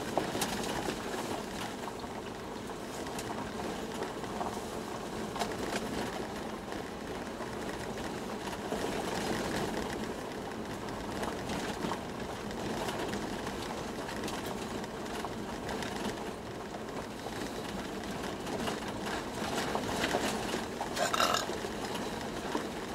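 Inside the cabin of a moving Toyota Land Cruiser 120: a steady rumble of road and engine noise with scattered knocks and rattles, and a louder clatter near the end.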